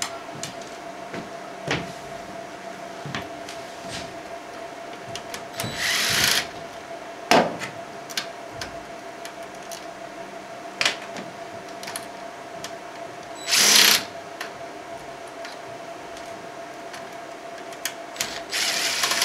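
DeWalt cordless driver backing out circuit-board screws in three short runs of under a second each, the last near the end, with small clicks and clinks of screws and metal in between.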